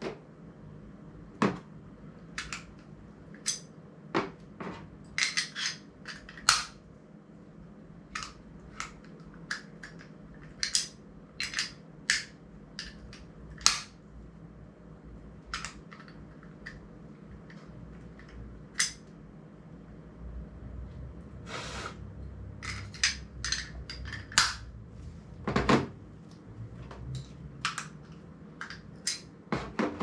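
YC Onion camera quick-release plates and clamps clicking and clacking as they are handled and snapped together: irregular sharp clicks and knocks, with one longer rasping sound about two-thirds through.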